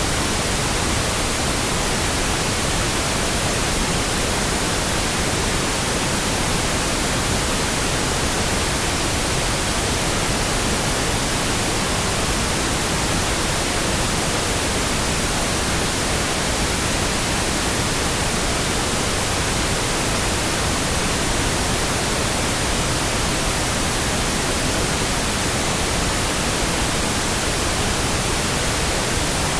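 Steady pink noise: a constant, even hiss that does not change.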